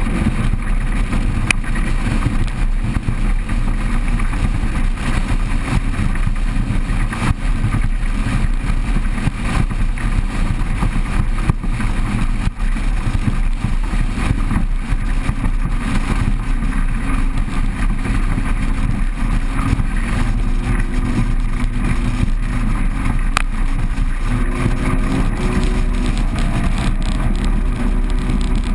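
A 6 m RIB's 200 hp outboard engine, turning a Solas HR4 23-pitch propeller, running hard at planing speed as the boat picks up from about 19 to 35 knots, with a steady rush of wind and water. The engine pitch edges upward in the last few seconds.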